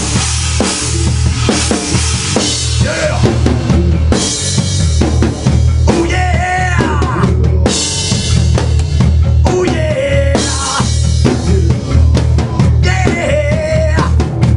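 A heavy metal band playing a song at full volume in a rehearsal room: drum kit, electric guitars and bass. A man sings short lines over it, near the middle and again near the end.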